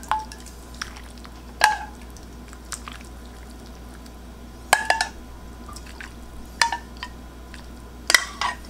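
A ladle clinking against the stockpot and bowl, several sharp ringing clinks a second or two apart, with broth pouring and dripping into a ramen bowl between them.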